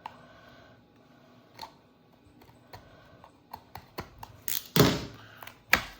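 Trading cards and their packaging being handled: scattered small clicks and taps, and two louder brief rustles near the end.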